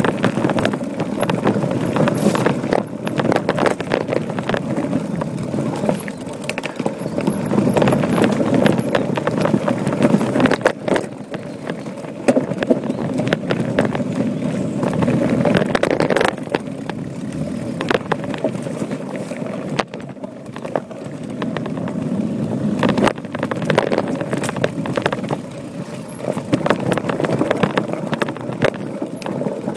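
Voodoo Bizango hardtail mountain bike riding down a rocky dirt trail: a steady rolling rush of tyres and wind on the microphone, with many small clicks, knocks and rattles as the bike goes over stones. The rush eases briefly a few times, about a third of the way in and again around two thirds through.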